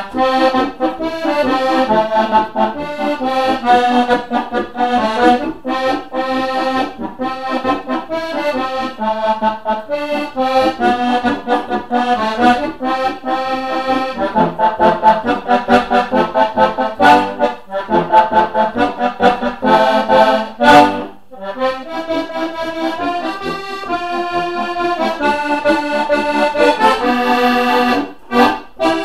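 Steirische Harmonika, the Styrian diatonic button accordion, playing a tune with melody over chords. The music breaks off briefly twice, once about two-thirds of the way through and once near the end.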